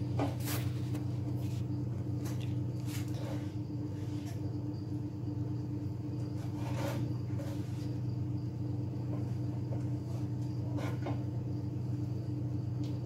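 A steady low hum, with a few faint, light taps and scrapes as a silicone pastry brush spreads oil inside a metal loaf tin.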